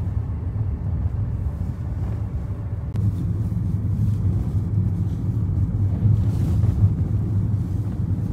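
Steady low rumble of a car in motion, heard from inside the cabin: engine and tyre road noise.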